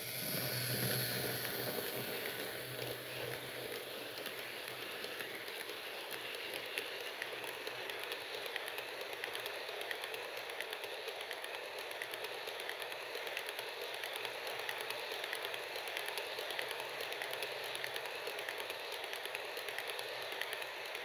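H0 scale model freight train rolling past on its track: a steady rumble of the wagons' wheels with a dense run of light clicks. A low motor hum from the diesel model locomotive is strongest in the first couple of seconds and then fades.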